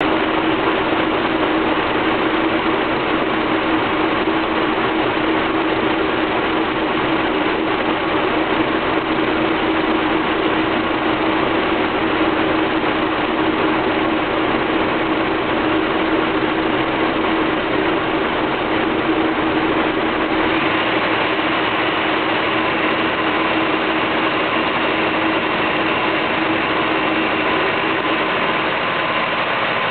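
Car engine idling roughly, with a steady running sound; the engine's vacuum swings between 13 and 15 inches and the whole engine shakes, a sign of a rough idle. The sound changes slightly about twenty seconds in.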